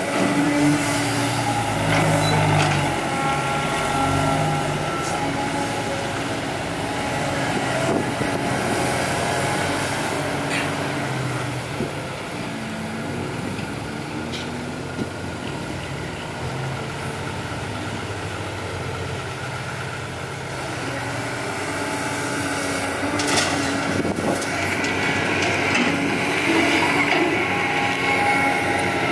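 Diesel engine of a CAT 320D hydraulic excavator running under load as it digs and swings its bucket, its pitch shifting as the hydraulics work, with dump-truck diesel engines running alongside. A few sharp knocks come about three quarters of the way through.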